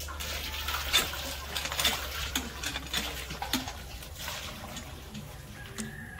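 Water splashing from a cast-iron hand pump's spout into a metal basin as the pump is worked, with irregular clinks and knocks as things are rinsed in the water.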